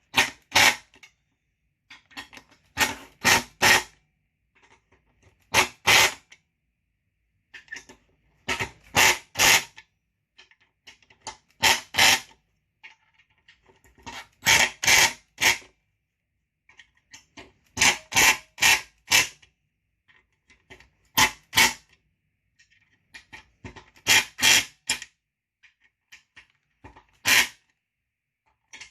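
Hand tool tightening the bolts of a chainsaw fuel tank. It makes sharp clicks in short bunches of two to four every couple of seconds, with quiet in between.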